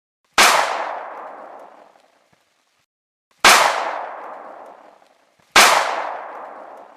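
Three loud single shot or blast sound effects, each starting sharply and fading away over about a second and a half, the second and third coming closer together.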